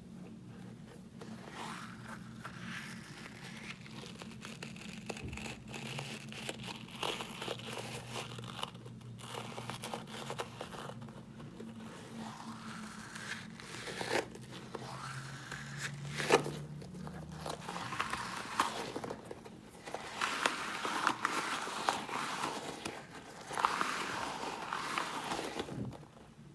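Hands squeezing and handling squishy foam toys: irregular crinkling and rustling with a few sharp clicks, over a faint steady low hum.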